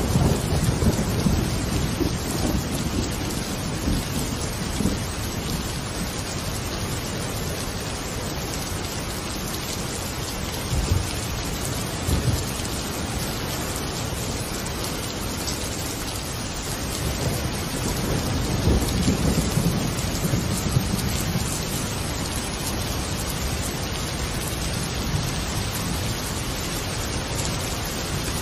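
Steady rain with low rumbles of thunder, the rumbling swelling near the start, again about eleven seconds in, and around nineteen seconds in.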